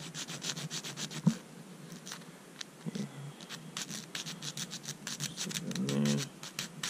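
Mini diamond needle file rasping back and forth in the axle slots of a plastic 1:64 die-cast car chassis, in bursts of quick short scratchy strokes, filing the slots deeper to lower the car's ride height. A short hummed voice sounds near the end.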